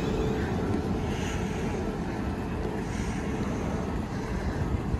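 Class 450 Desiro electric multiple unit pulling away. Its traction motor whine fades out about half a second in, leaving a steady low rumble as the train moves off.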